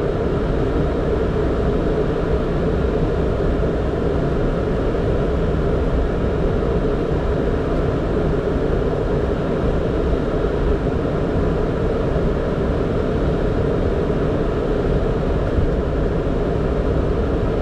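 Steady flight-deck noise of a Boeing 767 during taxi: a constant even rumble and rush with no change in level.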